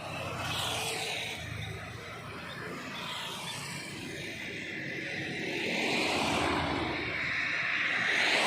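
Road traffic: the rushing noise of vehicles on the road, with several passing whooshes that swell and fade, the loudest near the end.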